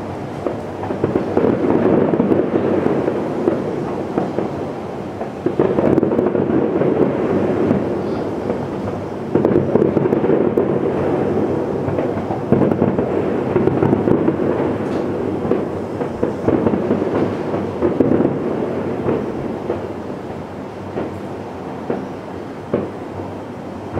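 Fireworks finale heard from far off: a continuous rumble of overlapping booms with scattered crackles and pops, swelling and easing in waves every few seconds.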